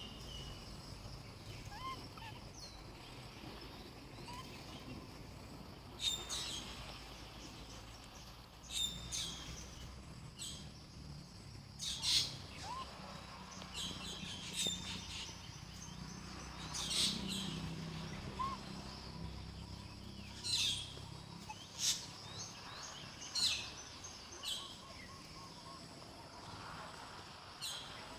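Outdoor birds chirping: short high chirps repeated every second or few, over a faint steady low background rumble.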